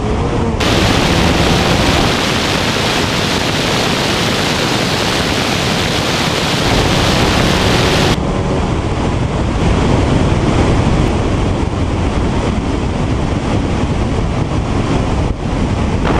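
Wind rushing over the microphone of a camera mounted on the outside of a car at high speed: a loud, steady noise that buries the engine.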